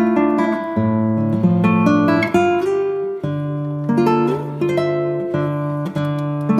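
Background music: an acoustic guitar picking a melody over bass notes.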